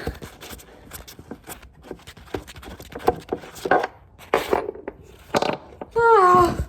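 A stripped Allen screw being worked out of a wooden table leg: scattered clicks, knocks and scrapes of metal against wood. Near the end comes a short, loud, strained vocal cry that falls slightly in pitch.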